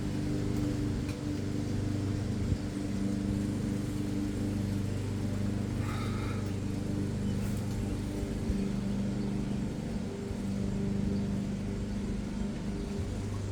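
A steady low mechanical hum, with a few faint clicks and taps over it.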